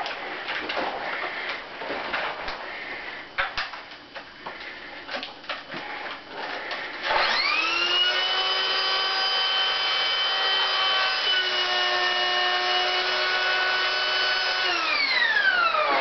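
Latex rubbing and clicking for the first several seconds. About seven seconds in, a small electric air pump starts up, rising quickly to a steady whine as it inflates a latex inflatable suit. Near the end the pump switches off and its pitch falls as it winds down.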